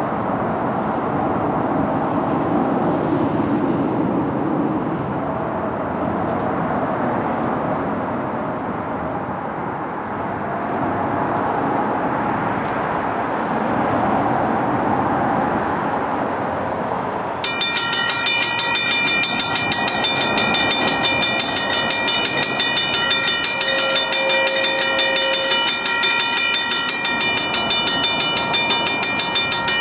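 NJ Transit commuter train led by a GP40FH-2 diesel locomotive running through on the rails, a steady rumble of wheels and engine. About 17 seconds in, a railroad grade-crossing bell starts ringing in rapid, even strokes and keeps on, the warning that another train is approaching the crossing.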